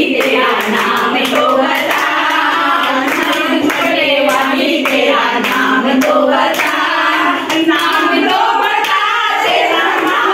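A group of women singing a song together, clapping their hands in a steady rhythm.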